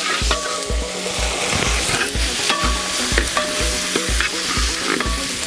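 Garlic, ginger and green chillies sizzling in hot coconut oil in an uruli while being stirred and sautéed, with many short clicks of the spoon against the pan. A regular low thump about twice a second runs underneath.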